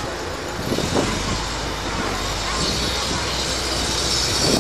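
McDonnell Douglas MD-90-30 jet engines at takeoff power: a steady roar with a deep rumble underneath and a high hiss that grows stronger from about a second in.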